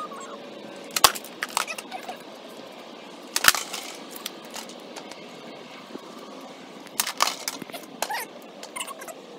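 Skateboard deck and wheels smacking and clacking on a concrete patio during heelflip attempts. A sharp knock comes about a second in, the loudest at about three and a half seconds, and a cluster of knocks around seven to eight seconds.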